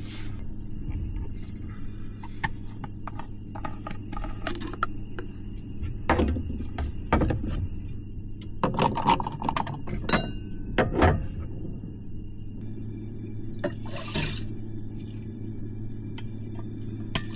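Scattered clicks, knocks and clinks over a steady low hum, with a busier run of clatter in the middle.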